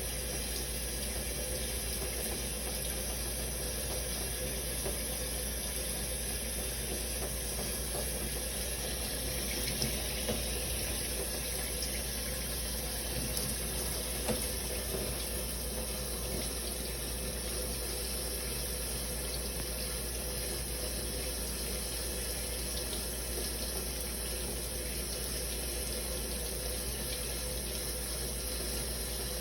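Shower running steadily, a continuous spray of water with a few faint ticks of drops.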